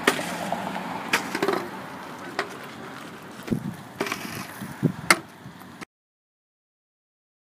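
Steel shovel scraping and knocking against the pavement and asphalt patch as a pothole is filled, with half a dozen sharp knocks at irregular intervals. The sound cuts off to silence about six seconds in.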